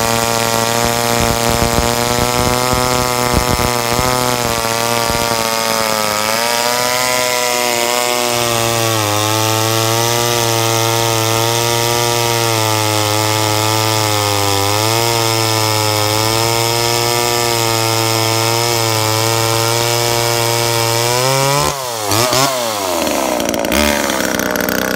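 Homelite XL top-handle chainsaw's two-stroke engine running at full throttle while cutting through a log, its pitch dipping and recovering several times under the load of the cut. About 22 seconds in, the throttle comes off and the engine pitch drops and swings as the saw comes out of the wood.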